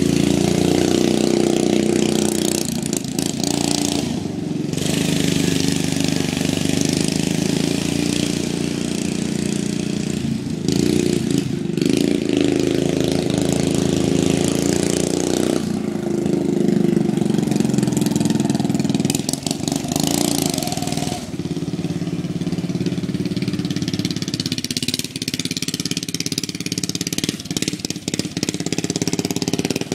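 Racing lawn mower's small engine running continuously, its pitch rising and falling as the throttle changes, with a few brief dips in engine speed.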